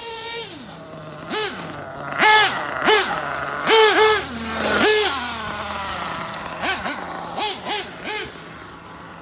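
Losi 8IGHT-T RC truggy's nitro glow engine revving in short throttle blips, the pitch shooting up from idle and dropping back again and again, with a run of smaller, quicker blips later on.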